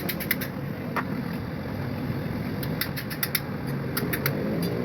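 A motor vehicle engine running steadily, with bursts of rapid, light clicking or tapping.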